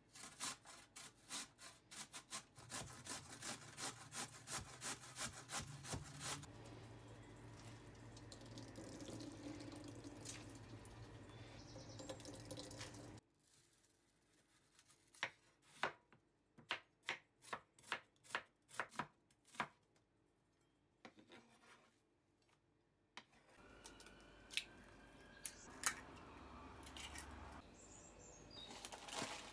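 Potatoes grated on a stainless steel box grater, a rhythmic rasp of about two strokes a second that thickens into steady scraping. Then a kitchen knife chopping an onion on a wooden cutting board, a run of sharp taps about two or three a second.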